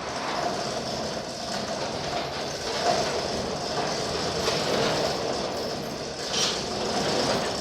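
Raynor chain-drive door opener running steadily as it raises a large door, the drive chain clattering along its rail, with a couple of brief clicks near the end.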